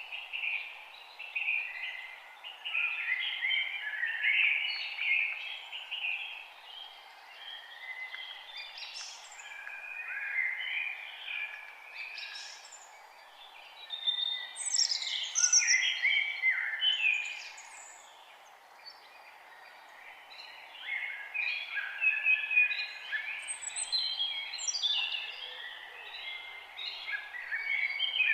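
Songbirds singing and chirping, several rapid twittering phrases overlapping and coming in waves with short lulls, over a steady background hiss.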